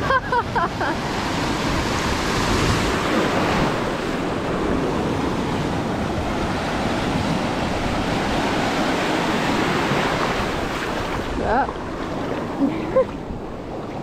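Small ocean waves breaking and washing over the shallows in a steady rush of surf.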